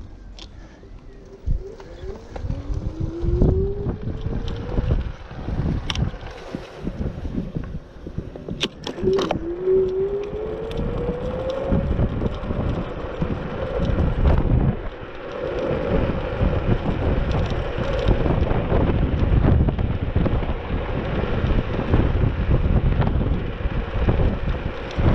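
A 500 W electric scooter's motor whining and rising in pitch as it speeds up, twice, then holding a steady whine at speed. Wind rumbles heavily on the microphone throughout, with a few sharp clicks.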